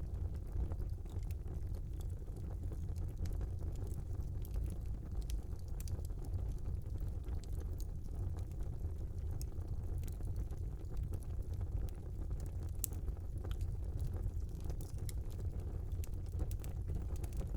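Small wood fire burning in a fireplace: a steady low rumble of the flames with frequent small sharp crackles and pops scattered throughout.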